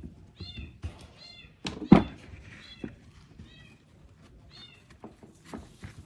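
Short, high-pitched mewing calls, repeated every second or so, among scattered clicks and knocks; the loudest is a sharp knock about two seconds in.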